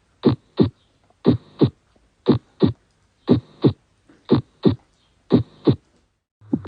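Heartbeat played back as a lub-dub: six pairs of beats, first and second heart sounds, about one pair a second in a steady rhythm with clean pauses between the pairs.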